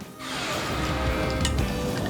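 Background music coming in about a quarter second in, with held notes over a bass line.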